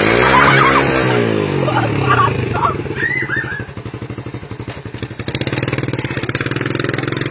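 Small motorcycle engine running just after starting: its pitch swings up and back down in the first second, it settles to a pulsing idle around four seconds in, then picks up and runs steadier and louder from about five seconds. A few short high voices sound over it in the first few seconds.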